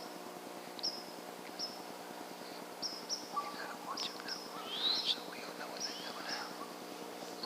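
Small birds chirping: short high chirps repeated every second or so, with a quick run of calls and a rising call about five seconds in, over a faint steady hum.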